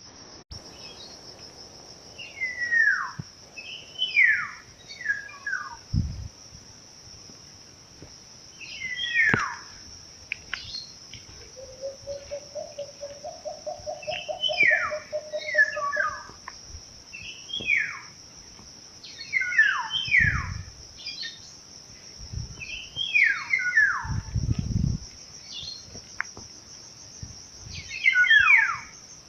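Wild birds calling: loud descending notes, often in quick pairs or groups, repeated every few seconds over a steady high-pitched insect drone. A lower wavering tone is held for a few seconds midway.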